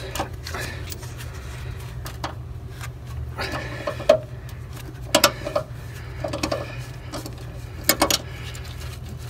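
Wrench clicking and clanking against stubborn brass fittings as they are worked loose: several short, sharp metallic clicks at irregular intervals, over a steady low hum.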